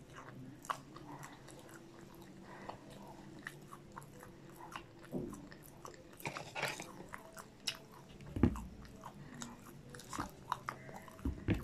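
Close-miked chewing of crispy fried popcorn chicken and potato wedges: scattered soft crunches and wet mouth clicks, with a couple of louder thumps about eight and eleven seconds in.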